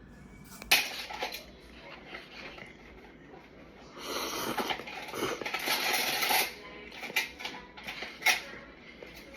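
An instant noodle cup and its packaging being handled. There is a sharp click about a second in, crinkly rustling for a couple of seconds in the middle, then a few more clicks and taps.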